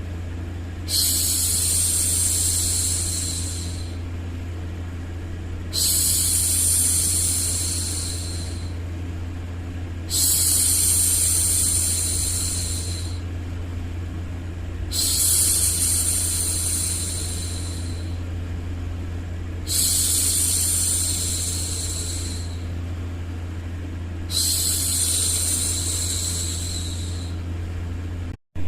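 A woman's hushing 'shhh' for soothing a baby, repeated six times, each about three seconds long and roughly five seconds apart, over a steady low hum. The sound cuts out for a split second near the end.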